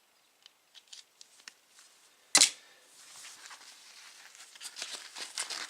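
Small objects being handled up close: a few light clicks, one sharp loud click about two and a half seconds in, then soft rustling and scraping with small clicks.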